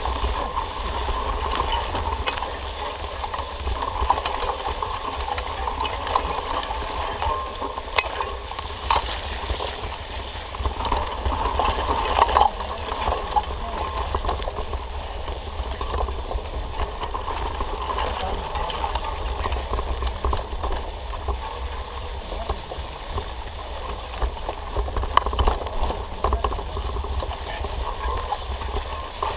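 Steady noise of a mountain bike being ridden over a rough dirt and grass track: tyre and trail noise with scattered clicks and rattles from the bike, and a low wind rumble on the camera's microphone.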